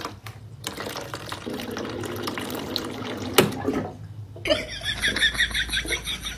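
Water dispenser tap running as a cat paws at it, a steady rush of water with a knock about three and a half seconds in. In the second half a quick, regular pattern of short sounds, about six a second, takes over while the cat has its head at the spout.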